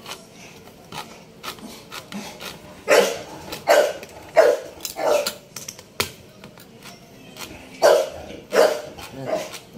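Pocket bully dogs barking in short, loud barks, about one every 0.7 s: four from about three seconds in, then three more near the end. They are excited at the sound of their food being opened. Under the barks, a hand can opener clicks as it is cranked around a tin.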